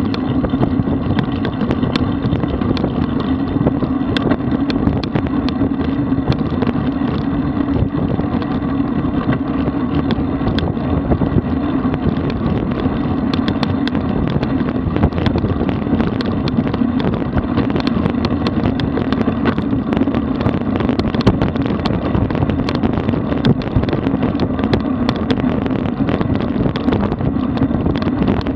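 Wind rushing over a bicycle-mounted camera's microphone along with road bike tyres rolling on asphalt at about 45–50 km/h, a steady noise with many small ticks and rattles scattered through it.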